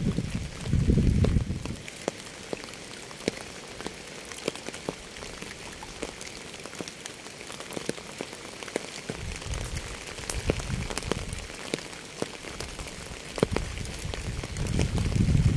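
Steady hiss of falling rain with many separate drops clicking close by. A low rumble swells up briefly near the start, again about two thirds of the way in, and once more near the end.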